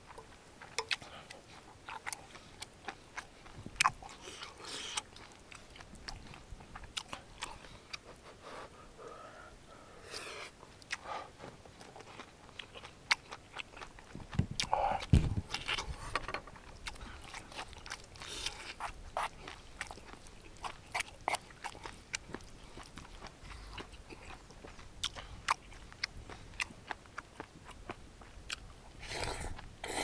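A person eating braised kimchi with pork belly: chewing and biting with many sharp, irregular mouth clicks and smacks, and a dull low thump about halfway through.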